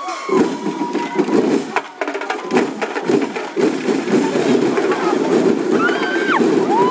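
Live percussion accompanying a festival street-dance performance: rapid drum and wooden-block strikes over a dense rumble of drumming. A few short high calls slide up and down over it, most of them about six seconds in.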